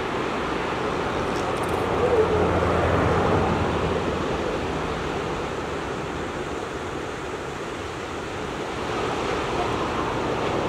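Ocean surf washing in over shoreline rocks, swelling about two seconds in and again near the end. A low steady drone sits underneath it for a couple of seconds at the first swell.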